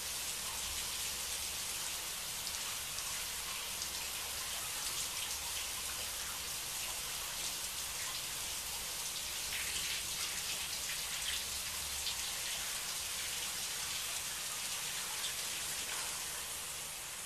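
Shower spray running steadily: an even hiss of falling water.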